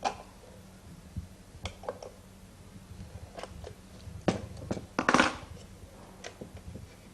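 Small tool-and-metal clicks and knocks as the nut holding the gong is unscrewed from the bottom of a Bakelite striking-clock case, with a louder rattling scrape about five seconds in.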